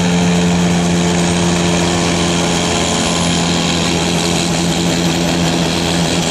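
Pulling tractor's engine running at a steady idle, hitched and waiting at the start line, with a faint high whine rising slowly in pitch.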